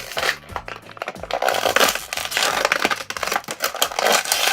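Close handling of toy packaging and small die-cast figures: a dense, irregular run of plastic clicks, scrapes and crinkles as a figure is worked free of its pack.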